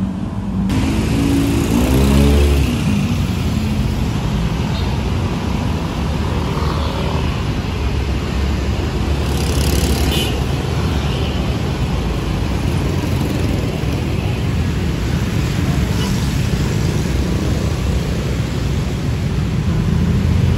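Road traffic: engines running and vehicles passing, with one engine rising in pitch about two seconds in.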